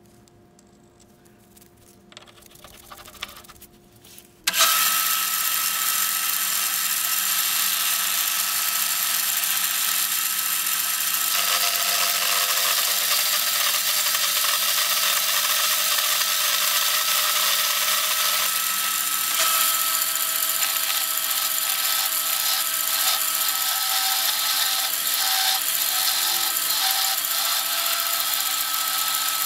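A machine tool's motor hums quietly. About four and a half seconds in, a loud, steady cutting noise starts and keeps on while a cast grinder wheel is machined.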